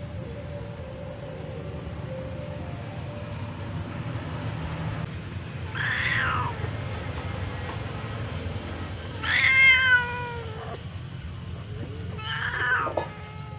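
Domestic cat meowing three times, each call falling in pitch. The middle call is the longest and loudest.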